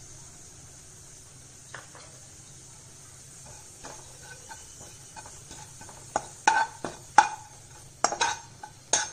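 A spatula stirring and scraping sun-dried neem flowers as they dry-roast in a nonstick pan. A few soft clicks come first, then a quick run of sharp scrapes and taps against the pan in the last three seconds.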